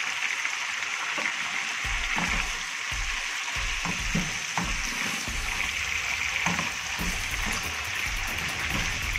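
Meat sizzling as it browns in ghee in a pan, a steady frying hiss, with irregular soft knocks through it.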